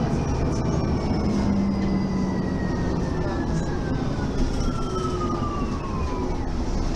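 Mercedes-Benz city bus running under way, a low drivetrain rumble with a whine that falls steadily in pitch over about six seconds as the bus slows, then fades out near the end.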